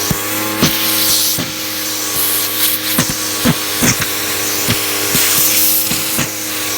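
Hoover vacuum cleaner motor running steadily with a hum and hiss, broken by frequent sharp clicks and knocks.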